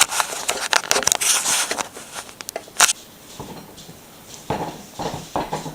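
Handling noise: dense rustling and crackly clicks for about three seconds, a sharp click near three seconds in, then a few soft thumps.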